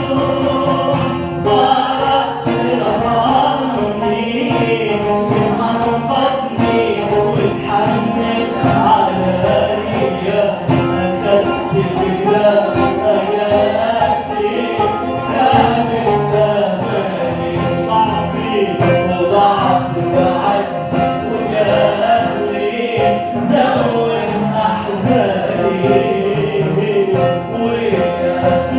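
Arabic Christian hymn music: choir-like singing over instrumental backing with a steady percussive beat.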